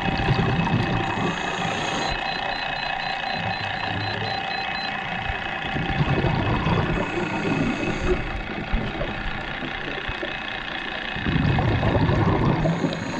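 Underwater sound of a scuba diver's exhaled regulator bubbles: three bursts of low bubbling rumble about five to six seconds apart, over a steady hum.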